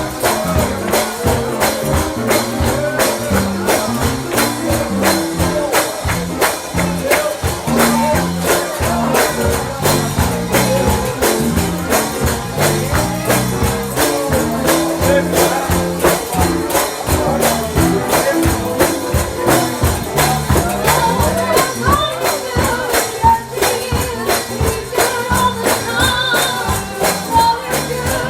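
Upbeat gospel song with a steady, driving beat and tambourine, with singing over it.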